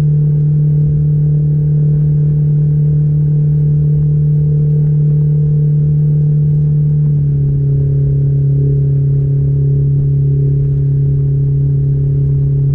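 Mercury 60/40 jet outboard motor running steadily under way at about 24 mph, with a low rumble beneath it. Its note drops slightly about seven seconds in as the boat eases to about 21 mph.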